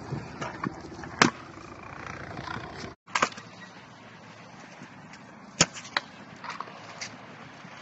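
Hard stunt-scooter wheels rolling over skatepark concrete, with several sharp clacks of the scooter's deck and wheels knocking on the ground.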